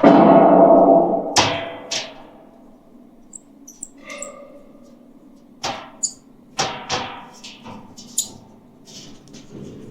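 Storage doors into a potato storage plenum being handled and opened: a loud clatter dying away at the start, then single knocks and clunks, a cluster of them in the second half. A few faint high chirps come about four seconds in.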